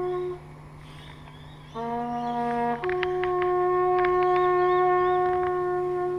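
A solo bugle sounding long, steady held notes. The higher note breaks off just after the start, a lower note sounds for about a second, then the higher note is held for about four seconds.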